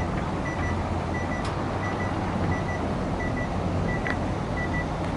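Reversing alarm of a construction vehicle: a high beep repeating about every 0.7 seconds over the low, steady rumble of its engine.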